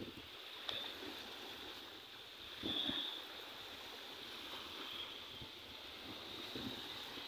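Small sea waves lapping and washing up a dark sand-and-pebble beach, with a louder wash about two and a half seconds in.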